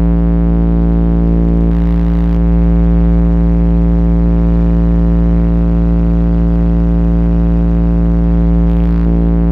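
Two 10-inch car subwoofers playing a steady 57 Hz test tone at very high level inside the car cabin during an SPL test, reaching about 153 dB on the meter. It is heard as one unbroken low, buzzy hum with a stack of overtones above it.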